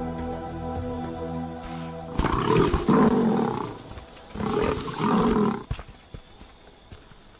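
Asiatic lioness growling twice, each growl a little over a second long, about two seconds apart, as she moves in on jackals feeding at a buffalo carcass. Background music with held notes plays under the first two seconds.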